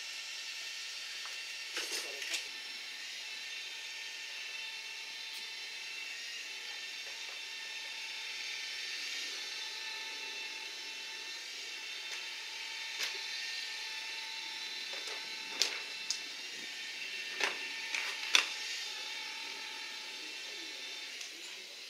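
Hand tools working on metal as an outboard motor is fitted to a boat's transom: clicking and a series of sharp knocks, most of them in the second half, over a steady hiss.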